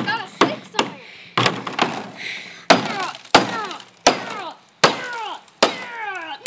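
A hammer striking a wrecked iPhone 3GS about ten times as it lies on the plastic floor of a kiddie pool, a sharp blow every half second to second. After most blows comes a short vocal cry that falls in pitch, from the person swinging.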